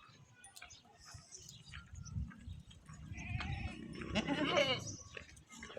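A goat bleating: one long, wavering call in the second half.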